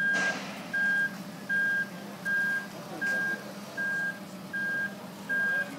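Boat-yard travel lift's warning beeper sounding a steady run of short, high beeps, about one every three-quarters of a second, over a low steady engine hum. A brief rushing noise comes right at the start.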